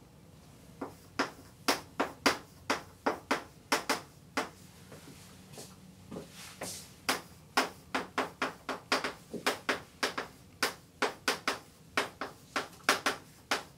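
Chalk clicking and tapping against a blackboard while words are written: a quick, irregular run of sharp taps, with a lull of a couple of seconds about a third of the way in.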